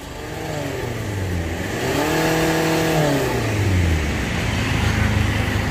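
The Tata Vista's swapped-in engine, heard from the rear of the car by the exhaust, is revved once: the revs climb over about two seconds, are held for about a second, then fall back to idle about four seconds in. It is a test rev after the mechanic has adjusted the power-setting nut to cure a lag in third gear.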